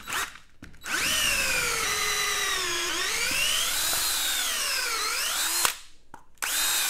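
Cordless drill with a 5/8-inch bit boring out the worn plastic hub of a lawn mower wheel: the motor whines, its pitch sagging and recovering twice as the bit loads up in the plastic. It stops briefly near the end, then starts again.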